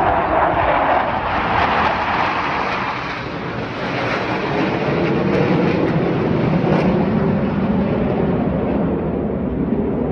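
Jet engine noise of T-50B jets flying past. It is loud at first, dips briefly, swells again, then slowly fades and deepens as they pull away.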